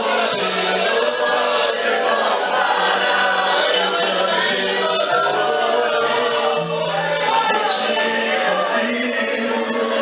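Gospel worship song with a choir singing over band accompaniment.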